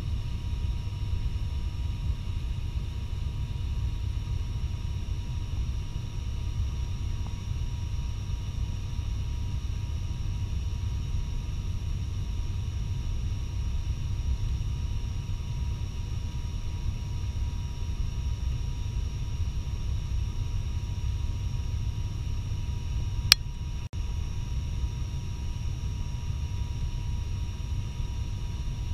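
Steady cabin noise of an ATR 72-600 turboprop in flight, heard inside the cabin beside the propeller: a low rumble with a steady mid-pitched hum and a fainter high whine. A single sharp click comes about two-thirds of the way through.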